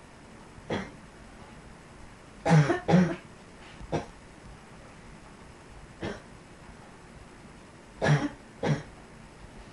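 A person's barking, chesty cough in short bursts. A faint cough comes under a second in, a loud double cough about two and a half seconds in, single coughs a second and a few seconds later, and another loud double cough near the end.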